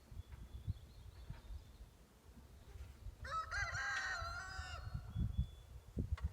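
A rooster crowing once, one crow of about a second and a half near the middle, over an uneven low rumble.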